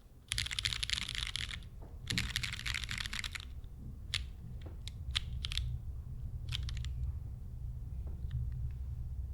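Geonworks F1-8X mechanical keyboard with lubed Pewter light-tactile switches on an aluminum plate and GMK keycaps, the home-row keys rolled in two quick rattling runs of about a second and a half each. A handful of single key presses follow, thinning out toward the end.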